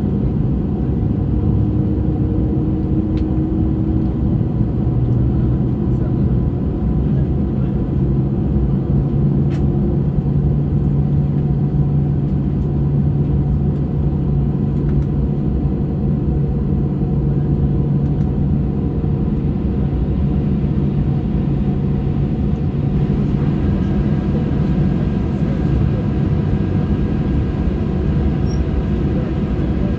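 Steady low rumble of a Boeing 737-600's cabin on the ground, with low humming tones that drift slowly in pitch.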